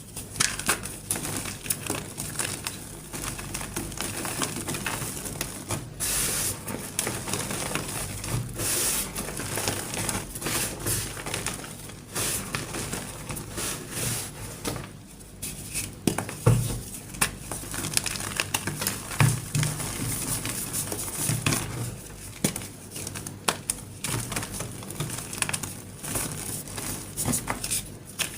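Gym chalk crunching and crumbling as it is crushed by hand: a dense run of dry crackles, with a few louder snaps.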